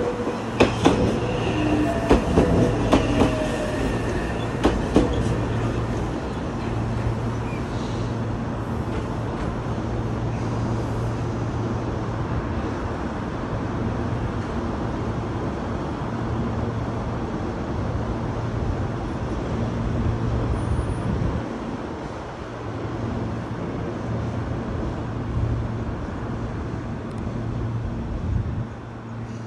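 Meitetsu 2200-series electric train standing at a platform, its equipment giving a steady low hum. In the first five seconds there are several sharp clanks and brief wheel squeal from rail cars moving over the track.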